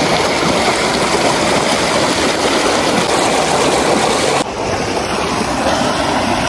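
Muddy floodwater rushing and churning through a breached earthen embankment, a loud, steady rush of water. A little over four seconds in, the high hiss drops out abruptly and the rush goes duller.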